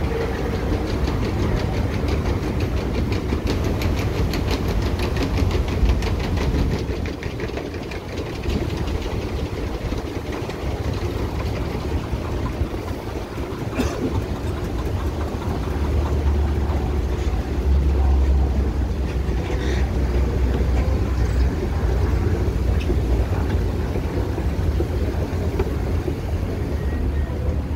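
Metro station escalator running: a steady low rumble, with a rapid even clicking through the first several seconds and one sharp click about halfway.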